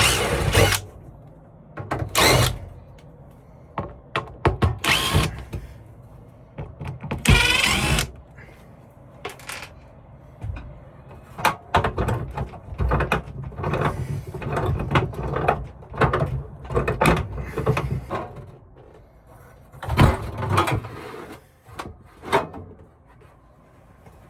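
Hand and power tool work: irregular knocks, scrapes and clatter, with a few short, loud whirring bursts of a power tool.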